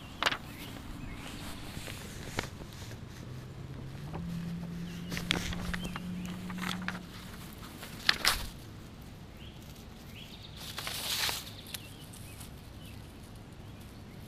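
Footsteps on grass with scattered close knocks and rustles of the camera being handled, including a louder rustle near the end, and a faint steady low hum for a few seconds in the middle.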